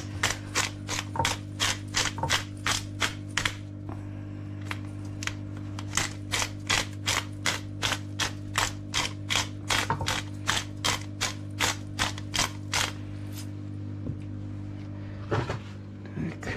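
Hand-twisted pepper mill grinding a mixed-peppercorn blend, its grinding head clicking about three times a second. The clicking pauses briefly about four seconds in and stops about thirteen seconds in.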